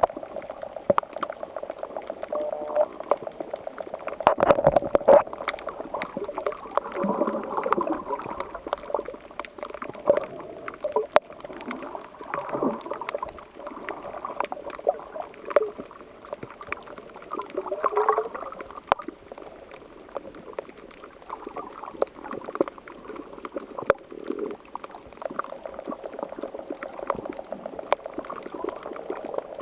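Sea water washing and gurgling on the shore: a dense crackle of small clicks and splashes, swelling in surges several times.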